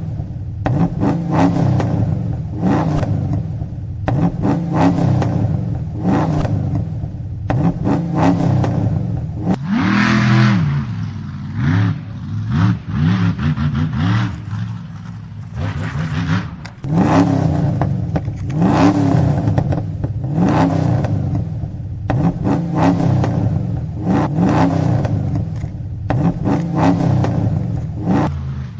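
Car engine revving over and over, its pitch rising and falling in repeated swells, with short scrapes or clatters between them.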